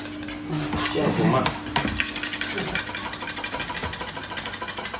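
Whisk beating egg whites by hand in a stainless steel bowl: rapid, even clinking of the whisk against the metal.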